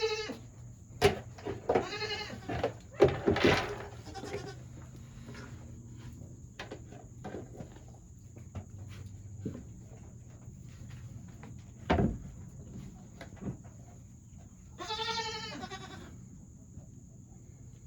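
Nigerian Dwarf goats bleating: a few calls a couple of seconds in and another near the end, with sharp knocks about a second in and around twelve seconds.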